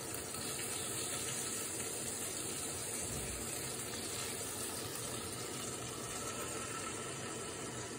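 Cheese-topped burger patty sizzling steadily in a frying pan under a glass lid.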